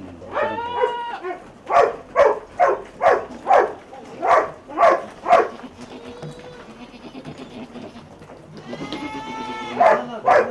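Goats bleating: a long wavering bleat near the start, then a quick run of about a dozen short calls, about two a second, and another long bleat near the end.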